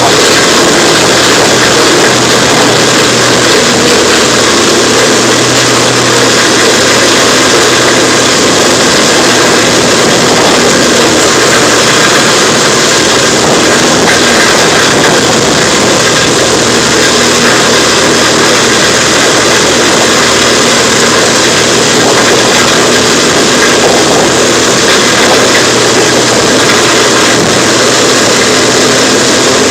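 Large wood chipper's engine running loud and steady with an unbroken mechanical din.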